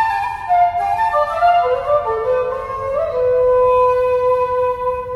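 Shakuhachi and seventeen-string koto duet: a phrase of notes stepping downward, settling about three seconds in on a long held shakuhachi note.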